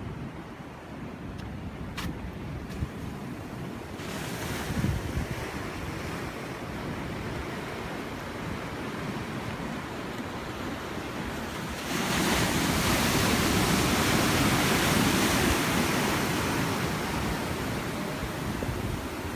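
Ocean surf washing and breaking, with wind buffeting the microphone. About twelve seconds in, a wave breaks and the rush of whitewater swells louder, then slowly eases off.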